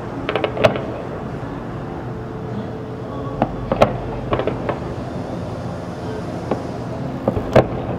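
Distant aerial fireworks bursting: clusters of sharp bangs and crackles about half a second in, again around three and a half to five seconds, and near the end, over a steady low background hum.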